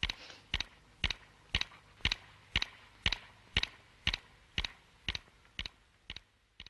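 Sound effect of the Moomin family clock's second hand ticking: crisp, even ticks about two a second, growing a little fainter toward the end.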